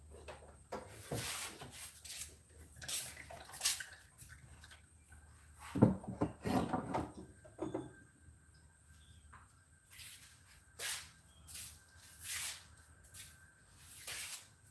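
Short scuffing and rustling noises of hands and tools at work, with a single clunk about six seconds in.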